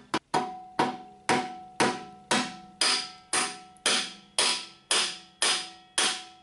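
Mallet tapping a Honda CX500 rear axle through the swingarm and final-drive hub: about thirteen even blows, roughly two a second, each with a short metallic ring. The axle is being driven home now that the powder coat has been cleaned out of its passage.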